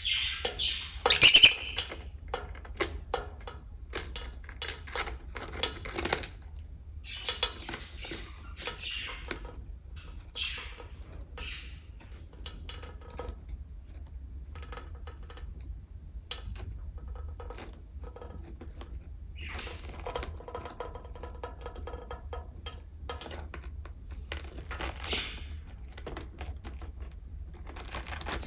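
Lovebird pecking and tapping its beak against a mirror in a run of irregular clicks, with a loud squawk about a second in and short chirps here and there.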